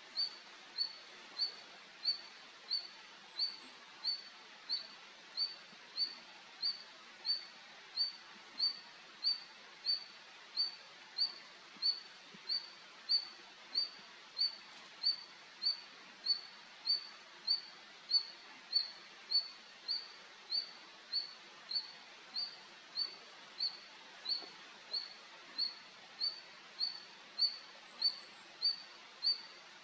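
Male red-flanked bluetail calling: one short, high, slightly rising note repeated evenly about one and a half times a second, over and over.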